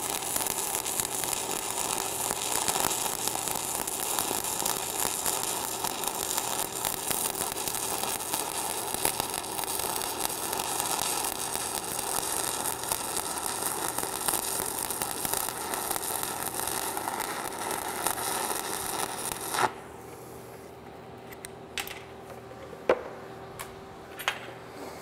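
Stick (shielded metal arc) welding arc at 160 amps, crackling and hissing steadily as the electrode runs a bead on steel plate. It breaks off suddenly about three-quarters of the way through with a click. A few faint clicks and knocks follow.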